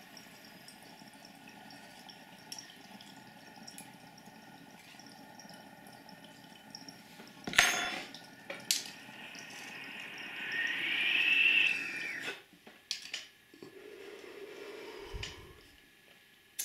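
Water bubbling inside a glass dab rig as a long, steady hit is drawn through it, growing louder with a rising-then-falling whistle near the end of the pull. There is a sharp knock a little past halfway.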